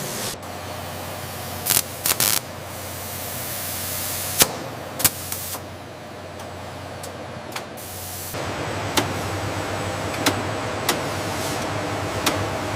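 Factory machinery: a steady hiss with sharp clicks and knocks scattered through it. The hiss drops for a few seconds around the middle and picks up again about eight seconds in, over a low hum.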